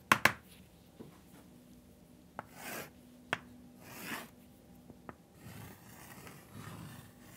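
Chalk on a blackboard: sharp taps as the chalk strikes the board, loudest twice right at the start, and two long scraping strokes as straight lines are drawn.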